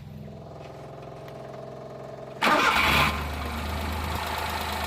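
Suzuki F6A three-cylinder engine cranked on the starter with a steady whir for about two and a half seconds, then catching with a sudden loud flare of revs and settling into a steady idle, its PCV valve opening partly restricted.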